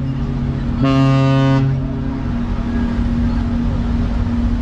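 A Cunard ship's horn sounding one deep, rich-toned blast about a second in, lasting under a second, just after an earlier blast has cut off. A steady low hum and rumble carry on after the blast stops.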